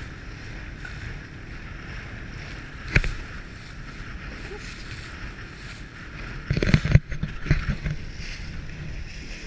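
Small open boat running at speed through choppy water: a steady rush of water, wind and motor. The hull slams a wave hard about three seconds in, then bangs through several more waves just before seven seconds in.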